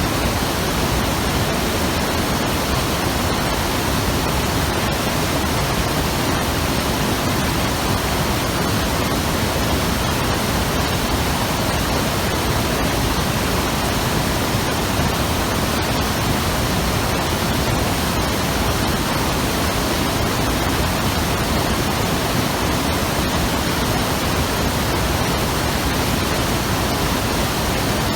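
Hayakawa mountain river rushing over rocks: a loud, steady wash of water.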